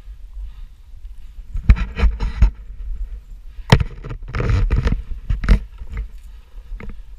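Shoes crunching and scuffing on a gravel trail, with several sharp knocks in clusters, over a steady deep wind rumble on the microphone.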